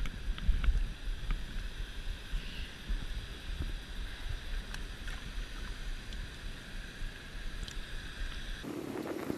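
River current rushing and lapping against a rock, with the steady rush of falling water upstream and wind rumbling on the microphone. The sound changes abruptly near the end.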